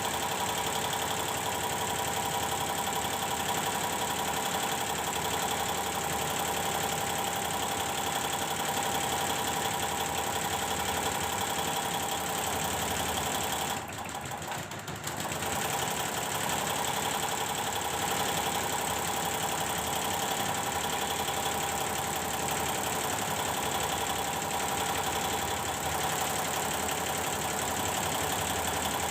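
Computerised embroidery machine running steadily through a stitching test run, with a fast even mechanical chatter and a steady whine; it goes briefly quieter for about a second and a half halfway through, then resumes.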